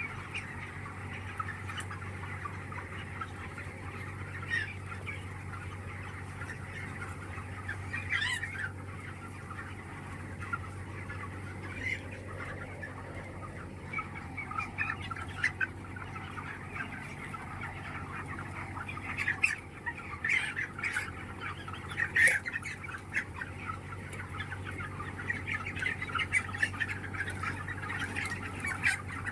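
A large flock of chickens in a poultry shed clucking and calling continuously, with a few louder squawks about eight, twenty and twenty-two seconds in, over a steady low hum.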